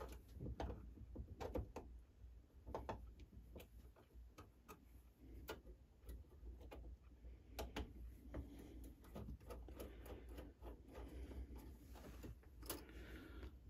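Faint, irregular small clicks and taps of metal clock parts and a small tool as a clock movement is taken apart and its small machine screws are removed.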